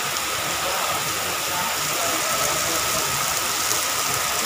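Heavy rain pouring steadily onto a road, an even hiss at constant level.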